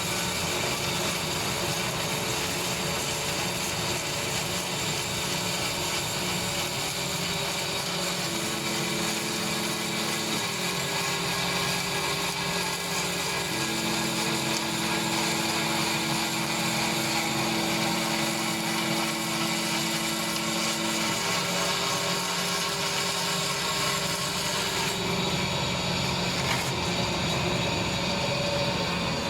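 CNC polyurethane foam contour cutting machine running, a steady mechanical noise whose motor tones step to new pitches several times as the cut moves along its path.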